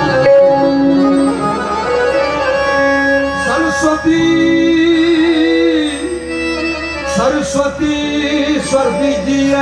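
A man sings a slow, free-rhythm devotional prayer-song live into a stage microphone. He holds long notes with wavering ornaments and slides, over a steady drone of held accompaniment notes.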